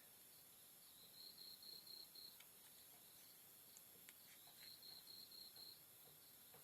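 Near silence with a faint cricket chirping in two short runs of quick, evenly spaced high pulses, and a few faint clicks.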